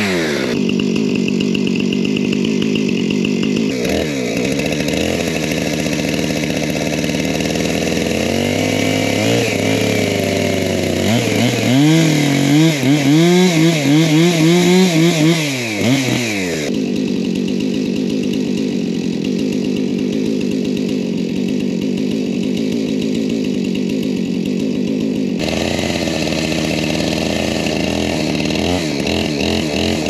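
Gas chainsaw running and cutting a green-wood beam. Its engine pitch wavers up and down under load between about twelve and sixteen seconds in, which is the loudest part. It then settles to a steadier, quieter running for several seconds before picking up again near the end.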